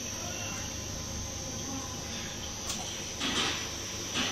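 Single screw snack pellet extruder running steadily, with a constant high-pitched whine over the machine hum. Several short hissing bursts come in the second half.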